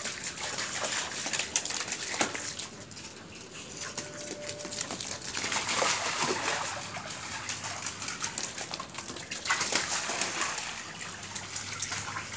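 Running water gushing and splashing on a stone floor as a husky plays in it, with small splashy clicks throughout. It swells louder twice, around the middle and toward the end.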